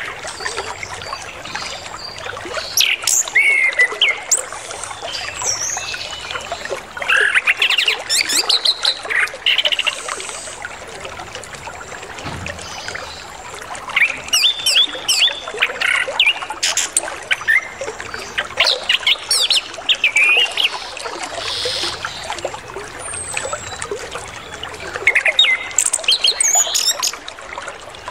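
Orange-headed thrush singing in several bursts of rapid, varied phrases that include mimicked calls of other birds, over steady trickling water.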